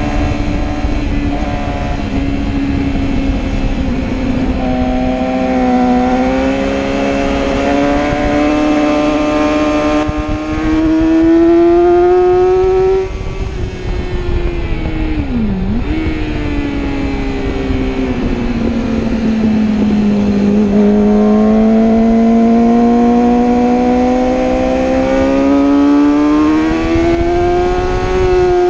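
Sport motorcycle engine heard on board at track speed, its note climbing slowly through the revs for several seconds, then dropping with a quick dip about halfway, sinking low and climbing again near the end. A steady rush of wind lies underneath.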